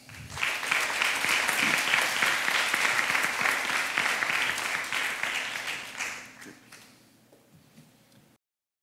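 An audience applauding: the clapping starts at once, holds steady for about six seconds, then dies away, and the sound cuts out to silence near the end.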